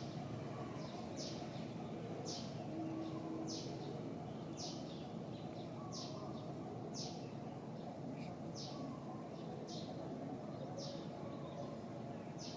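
A bird repeating a short, high call that slides downward, about once a second, with fainter calls in between, over steady background noise.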